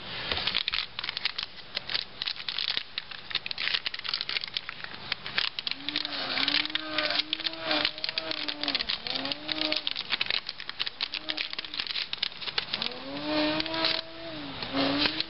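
Crinkling of a plastic anti-static bag and small clicks and taps from handling a car's engine computer and its plug-in chip. From about six seconds in, and again near the end, a low wavering hum rises and falls in several short phrases.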